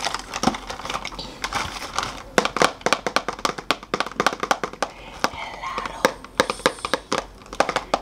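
Long fingernails tapping quickly on a cardboard box, several sharp taps a second, coming thicker from about two seconds in.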